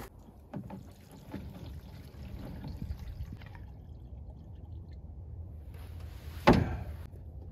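Diesel fuel pouring from a large plastic fuel can into a smaller plastic can, with a single thump near the end.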